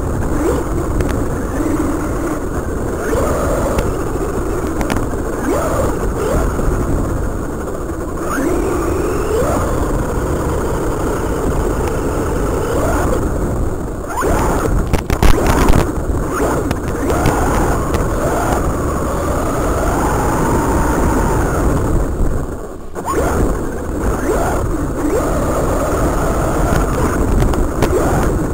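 Electric motor and gear whine of a Feiyue Eagle RC off-road truck, picked up on board, rising and falling in pitch with the throttle over a steady noisy hiss. A burst of sharp knocks comes about halfway through.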